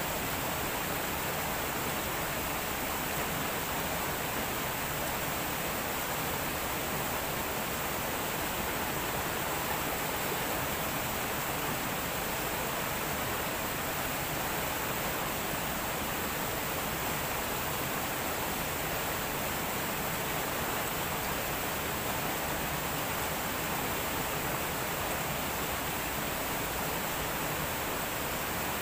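Steady, even rush of river water running over rocks.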